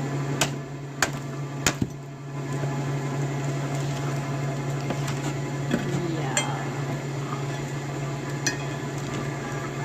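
Sharp, short knocks of wood being worked while splitting firewood: three quick ones in the first two seconds, then two more spaced out later, over a steady low hum.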